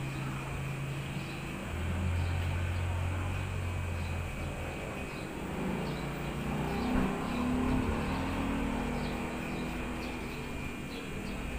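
Electric hair clippers running with a steady low hum while cutting hair, the pitch shifting now and then as the blade is worked through the hair.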